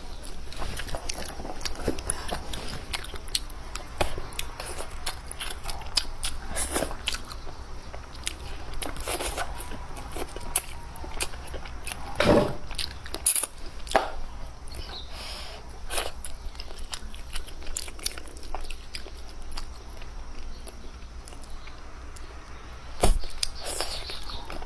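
A person chewing and biting food, with scattered short clicks and a couple of louder knocks, one about halfway through and one near the end.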